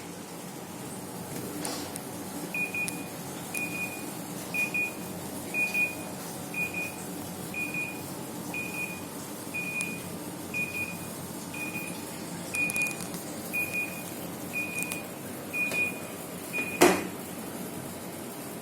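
Automatic washing machine beeping: about fifteen short, identical high beeps, roughly one a second, over a low steady hum. A loud sharp knock comes just after the last beep, near the end.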